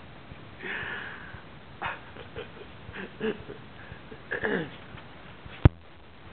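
A dog sniffing and snuffling in short bursts, with brief whining sounds, one sliding down in pitch. A single sharp knock about five and a half seconds in is the loudest sound.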